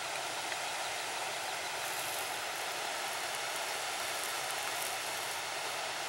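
Waterfall rushing steadily, an unbroken hiss of falling water.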